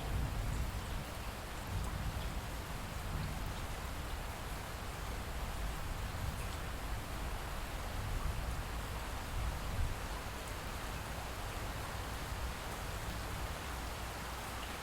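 Steady light rain, an even hiss with a constant low rumble beneath it.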